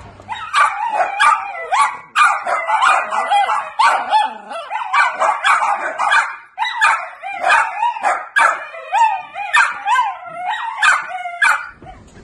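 A group of miniature dachshunds howling together: several high, wavering howls overlap, broken by short yips. It starts about half a second in and stops shortly before the end.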